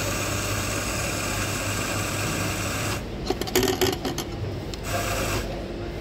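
Electric on-demand espresso grinder running, its burrs grinding coffee beans straight into a portafilter with a steady whirring hiss over a low motor hum. The grinding stops about three seconds in, followed by a few sharp clicks.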